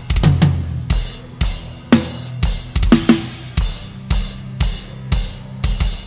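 A heavy metal drum kit played live in a full band mix. A quick fill of several hits comes near the start, then a steady beat of kick, snare and cymbal crashes about twice a second, over sustained guitars and bass.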